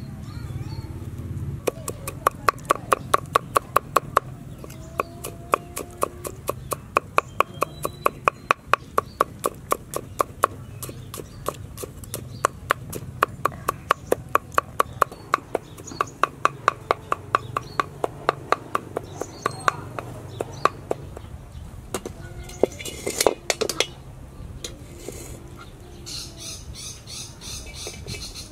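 Cleaver chopping garlic on a wooden chopping board: quick, even knocks about five a second, in runs with short pauses, stopping about three quarters of the way through.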